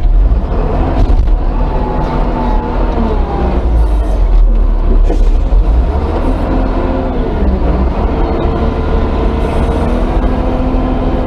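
Front loader's diesel engine running steadily under load, heard from inside the cab as a heavy low rumble, with a fainter whine that wavers in pitch as the machine moves.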